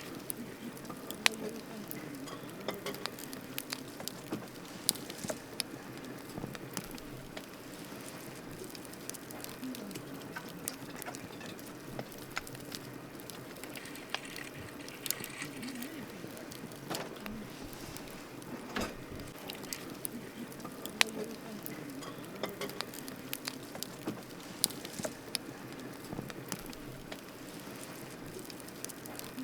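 Wood campfire crackling: irregular sharp pops and snaps, a few of them louder, over a steady low rustle of the burning fire.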